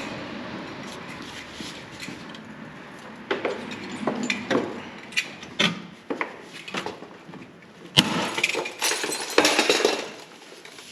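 Scattered clanks and knocks, then about eight seconds in a sharp crack followed by some two seconds of glass shattering and tinkling: a fluorescent light tube breaking.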